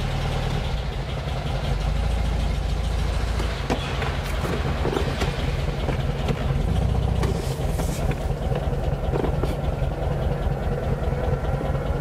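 A 1964 Porsche 356C's air-cooled flat-four engine runs steadily at low revs as the car reverses out of the garage. It is running on freshly rebuilt Zenith carburettors and is not yet fully warm.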